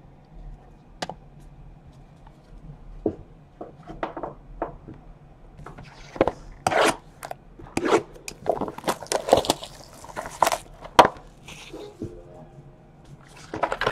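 Cardboard trading-card hobby boxes being handled, slid and set down on a table: irregular scrapes, taps and knocks, sparse at first and busiest midway.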